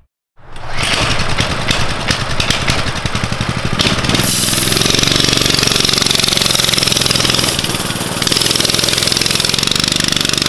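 Coleman CT200U-EX mini bike's single-cylinder engine, still stock, running under throttle while it is ridden, its pitch wavering up and down. It comes in abruptly after a brief silence near the start.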